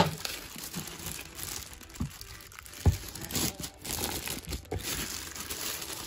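Thin clear plastic packaging bags crinkling as hands unwrap and pull open the bagged desk lamp parts, with a couple of light knocks about two and three seconds in.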